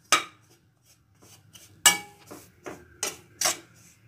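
Metal slotted spatula scraping and clinking against a metal kadai while stirring gram flour being dry-roasted without oil. There is one sharp clink at the start, then a run of clinks about every half second from about two seconds in.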